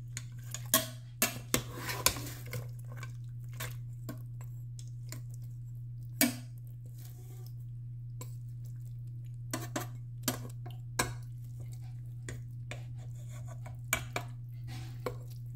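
Metal spoon clinking and knocking against the stainless steel inner pot of an Instant Pot as it stirs and lifts cooked turkey necks in barbecue gravy, in irregular strokes. A steady low hum runs underneath.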